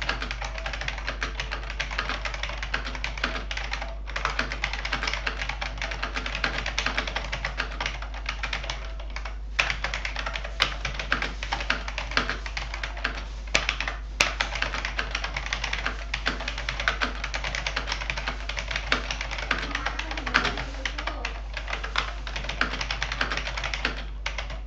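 1987 IBM Model M keyboard being typed on fast and continuously, its buckling-spring keys clacking in rapid strings broken by a few brief pauses.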